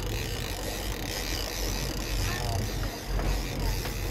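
Steady low rumble and rushing hiss of a fishing boat running on open water, with wind.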